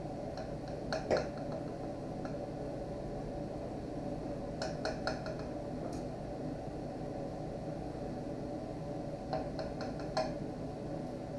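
Knife slicing through a roast pork tenderloin and tapping on the cutting board beneath: small clusters of short clicks a few seconds apart, over a steady low background hum.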